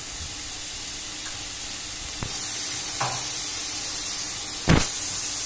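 Chicken pieces with ginger-garlic paste frying in hot oil in a pan, a steady sizzle that grows a little louder after about two seconds. A brief click comes about two seconds in, and a sharp knock near the end is the loudest sound.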